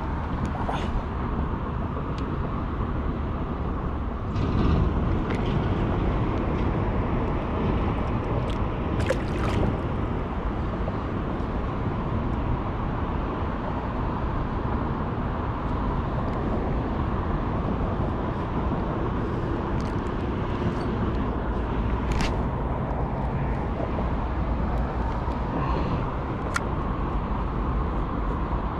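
Steady low rumble of road traffic, with a few brief sharp clicks.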